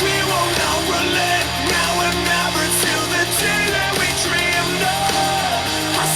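Rock song with a singer played through a small JBL Go-series Bluetooth speaker.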